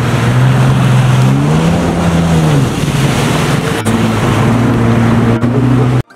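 Yamaha jet ski's engine running at speed over the rush of water and spray; its pitch rises about a second and a half in and falls back a second later.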